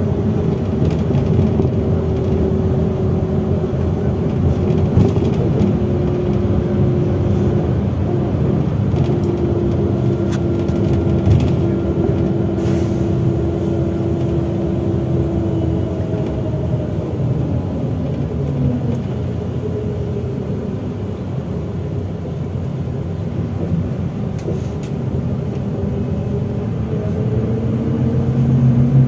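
MAZ-103.469 city bus heard from inside the passenger cabin while driving: steady engine and road rumble with a held whining tone that drifts slowly in pitch. Near the end it grows louder and a lower tone rises in pitch.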